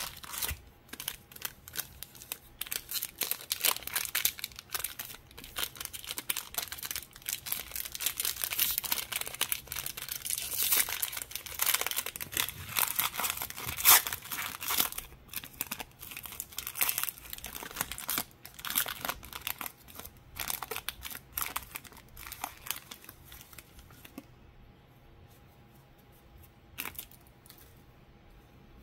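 Plastic wrapping on a trading card hobby box being torn off and crumpled by hand, a dense run of crackles that goes on for more than twenty seconds. It then goes quiet, with one sharp click near the end.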